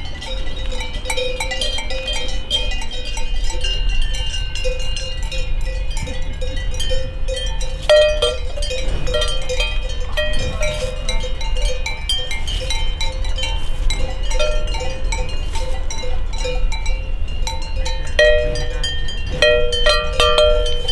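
Cowbells on grazing cows clanking and ringing, several bells at different pitches, with fresh clanks about eight seconds in and again near the end.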